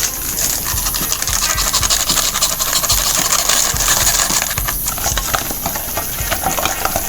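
Spoon stirring and scraping in a steel bowl, mixing tandoori chicken pieces with melted butter, cream and chaat masala, with rapid clinks of metal on metal.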